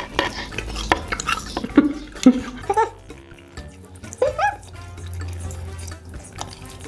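Close-up wet sucking and slurping as cola-flavoured jelly is sucked out of a long tube and bitten, with short squeaky slurps and lip smacks.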